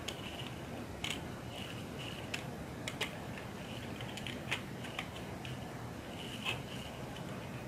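Light plastic clicks and taps at irregular intervals as plastic electrical switch and indicator modules are handled and pressed into a plastic switchboard plate.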